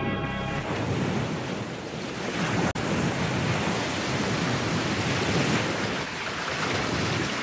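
Surf washing over a rocky shoreline: a steady rush of breaking waves. A music score stops about half a second in, and the sound drops out for an instant near the third second.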